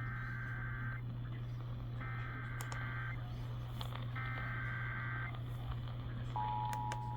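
Emergency Alert System SAME header: three bursts of warbling digital data tones, each about a second long, carrying the coded tornado-warning alert. About 6.4 seconds in, the steady two-tone EAS attention signal starts. A steady low hum runs underneath.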